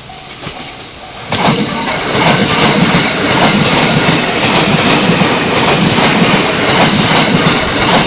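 A level-crossing warning bell dings until about a second in, then an E217-series electric train passes close by, much louder: a steady rumble of steel wheels on rail with a rhythmic clacking over the rail joints.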